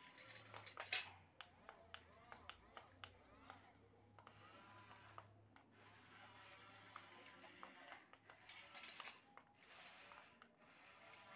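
Scattered light clicks and knocks of plastic toys being handled, with one sharper knock about a second in.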